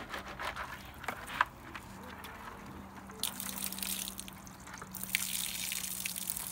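Water pouring and splashing out of a tipped plastic bucket of crawdads as it is drained, with tongs holding the crawdads back. A few sharp clicks and knocks in the first second and a half, then a hissing gush of water from about three seconds in.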